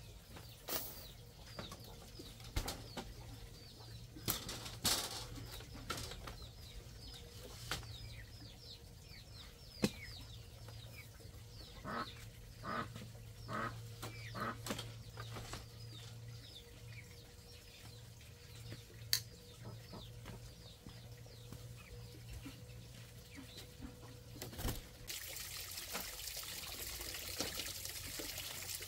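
Scattered knocks and taps of bamboo being handled, with a run of about four knocks midway, while birds chirp steadily with many short, high, falling chirps. Near the end a steady hiss takes over.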